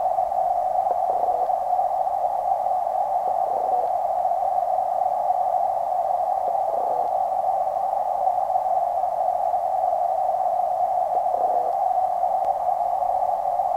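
Steady, muffled hiss confined to a narrow middle band, heard through a waterproof camera housing sitting underwater in a creek. Four faint, soft low knocks come through it.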